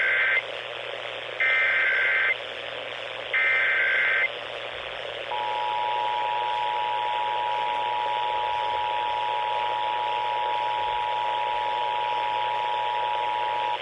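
Emergency Alert System tones over steady radio hiss. First the end of one burst and then two more bursts of buzzy digital SAME header data, about two seconds apart. About five seconds in, the two-tone attention signal (853 and 960 Hz) starts and holds steady, marking the start of an EAS test broadcast.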